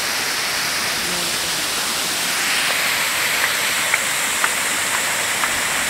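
Waterfall rushing with a steady roar of falling water. A few faint clicks come in the second half.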